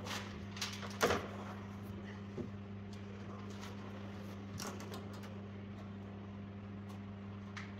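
Scattered knocks and clicks of a screwdriver and hands working at a side window inside the steel body of a VW T1 bus, the loudest knock about a second in, over a steady low hum.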